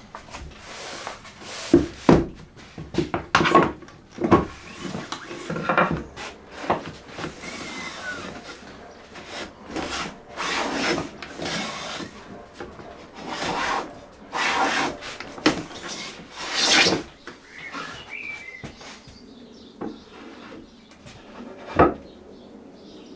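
A hand tool scraping and rubbing on wood in a run of irregular strokes, with a few sharp knocks.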